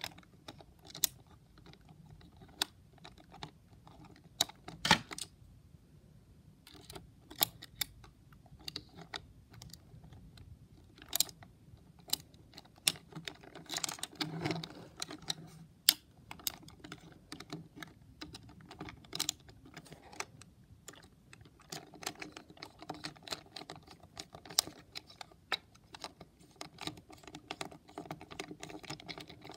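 Irregular small plastic clicks and taps as fingers handle and press on a Hexbug BattleBots toy robot's clear plastic shell and wheels during a repair, denser in stretches about halfway through and near the end.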